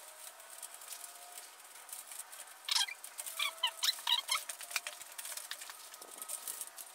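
Light clicking and rattling of thin galvanized wire being threaded by hand through overlapping chicken wire mesh. About three seconds in, a few short high chirps or squeaks.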